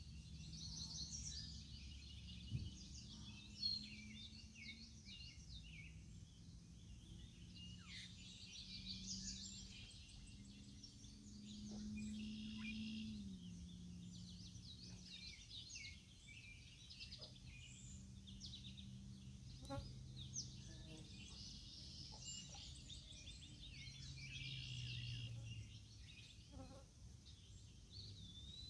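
Songbirds chirping and trilling, several at once. Underneath, a faint low hum shifts in pitch now and then, and two sharp clicks come a few seconds in.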